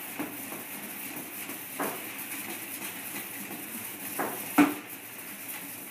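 Metal sauté pan being slowly swirled on a stainless-steel counter, off the heat, to work the cod kokotxas' gelatin into a pil-pil sauce: three light knocks and scrapes of pan on steel, the sharpest about four and a half seconds in, over a steady background hiss.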